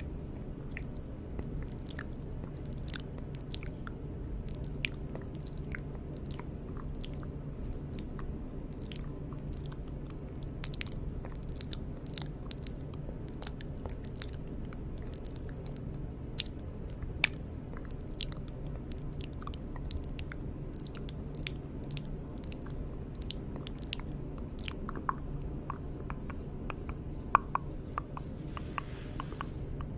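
ASMR mouth sounds close to the microphone: irregular wet clicks and smacks, a few louder ones, over a steady low hum.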